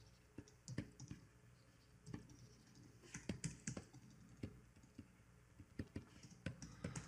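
Faint, irregular clicks and taps of computer keyboard keys, a few presses at a time with short gaps between.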